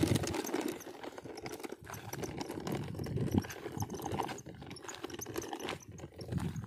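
Hand scraping and scooping dry, gritty dirt, with a plastic toy dump truck knocking on the ground: irregular scuffs and taps.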